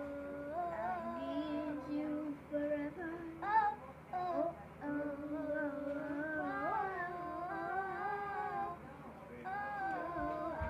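A high voice singing a slow melody, holding long notes with small slides between them.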